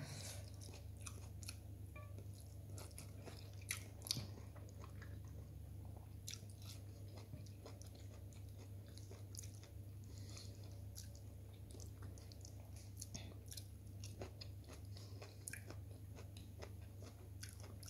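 A person chewing and eating food by hand, with many small mouth clicks and smacks, two a little louder about four seconds in, over a steady low hum.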